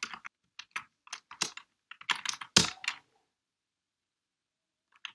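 Keystrokes on a computer keyboard: a run of quick key clicks with one harder keystroke about two and a half seconds in. The typing stops there and starts again at the very end.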